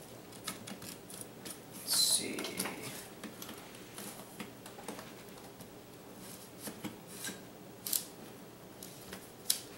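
Scattered light clicks and taps from an Asus Q550LF laptop's display assembly and plastic case as the display is wiggled and lifted out of the lower case. A brief, louder scrape comes about two seconds in.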